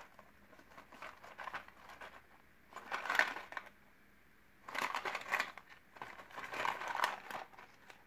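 Small cardboard boxes of WAGO 243 micro connectors handled and turned over in the hands: a few short rustling, scraping bursts of cardboard rubbing against fingers and against each other.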